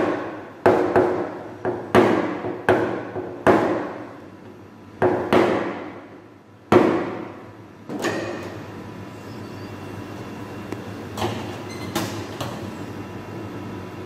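A PDR hammer tapping a knockdown punch against a car's sheet-metal body panel to tap down the high spots around a hail dent: about a dozen quick sharp taps, each with a short ringing decay, with pauses between groups. About eight seconds in the tapping gives way to a steady low background noise with a few faint taps.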